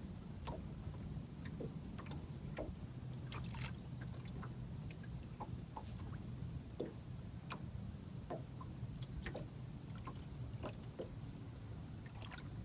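Quiet on-boat ambience: faint water lapping and trickling against the hull, with scattered small ticks over a low steady hum.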